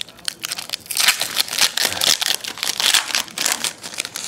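Foil trading-card pack wrapper being torn open and crinkled by hand: a dense run of sharp crackling, with a short pause just after the start.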